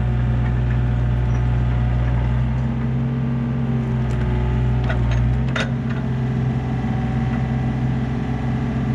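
Yanmar B37 mini excavator's diesel engine running steadily, with a few short metallic clanks from the machine about halfway through.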